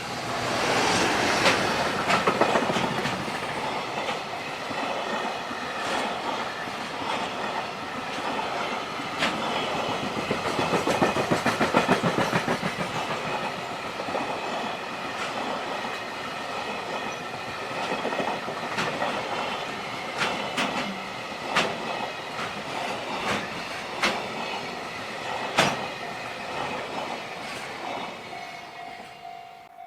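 A JR Freight train passing close by, its wagon wheels clattering over the rail joints in a long run of sharp clicks. It is loudest as it arrives, in the first couple of seconds, and dies away near the end, when the level-crossing warning bell's steady tone comes through again.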